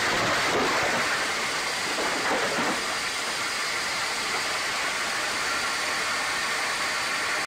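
Steady road and engine noise of a moving vehicle as heard by its dashcam, a constant rushing hiss, a little louder for the first few seconds.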